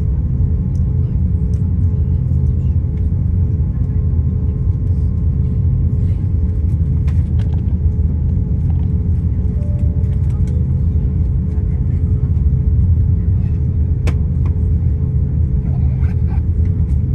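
Cabin noise inside an Airbus A350-900 taxiing: a steady low rumble from its Rolls-Royce Trent XWB engines at taxi power and the rolling airframe, with a thin steady hum and a faint click now and then.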